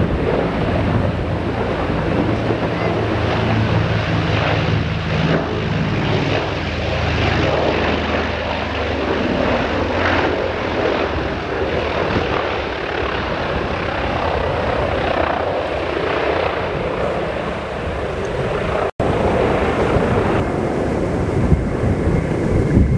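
A Lockheed Super Constellation's four Wright R-3350 radial piston engines running with a steady propeller drone as the airliner touches down and rolls along the runway. There is a brief dropout about three-quarters of the way through.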